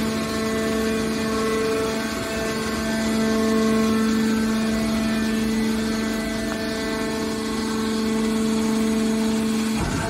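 Hydraulic power unit of a scrap metal baler running, its electric-motor-driven pumps giving a steady pitched hum, with a brief rush of noise near the end.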